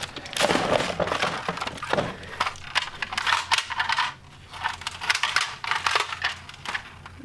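Hard plastic clattering and knocking: a toy foam-dart crossbow being handled and lifted out of a clear plastic storage bin, knocking against the bin and the loose items in it, in several bursts.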